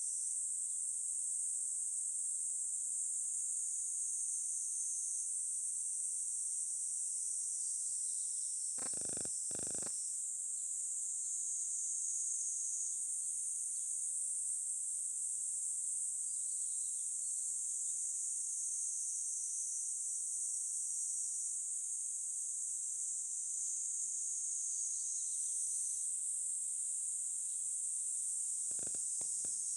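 Steady, high-pitched chirring of an insect chorus outdoors, its pitch shifting slightly every few seconds. A pair of brief knocks sounds about nine seconds in, and another near the end.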